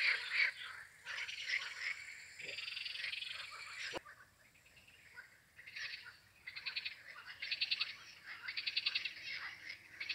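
Frogs calling in a chorus: overlapping rapid pulsed croaks, with several distinct fast trills in the second half. A single sharp click comes about four seconds in, where the sound briefly drops.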